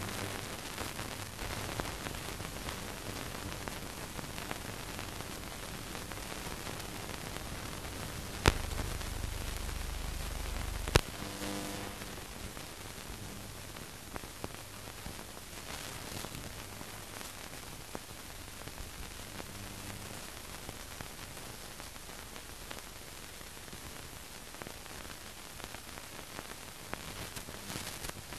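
Steady hiss and faint crackle of an old newsreel sound track with no programme sound on it. About eight seconds in a sharp click is followed by a low hum, which stops with a second click about two and a half seconds later.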